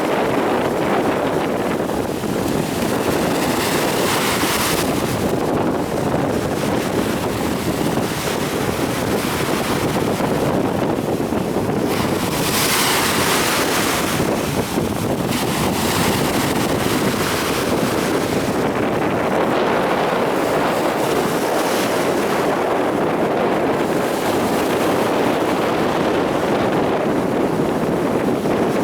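Stormy sea surf: waves breaking and washing in without pause, with wind buffeting the microphone. Louder breaking surges come every several seconds, the strongest about twelve seconds in.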